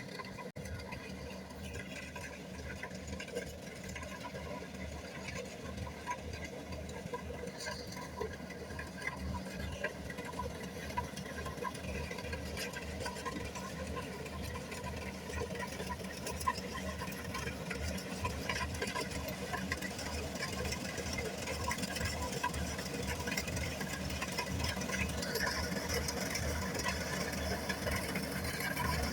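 Kubota rice combine harvester's engine running steadily with a fast, even pulsing, growing gradually louder towards the end.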